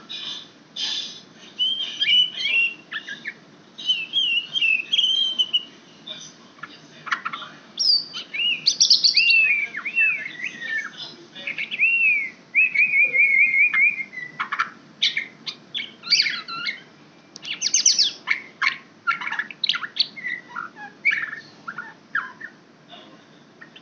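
White-rumped shama singing a long, varied song: clear whistled phrases, looping notes and a short trill in the first half, then quick, sharp chattering notes from about halfway through.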